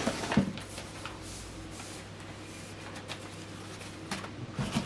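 Hands handling a parcel and its packing material: a few sharp knocks and rustles near the start and again near the end, with quieter rustling between.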